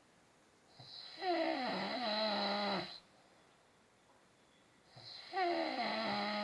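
A man snoring: two long snores about four seconds apart, each a pitched drone that starts with a downward slide in pitch, with quiet pauses between them.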